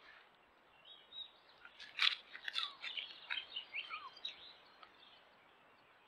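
A roe deer up against the trail camera: a cluster of close crunching, scraping clicks about two seconds in, lasting a couple of seconds, over faint birdsong.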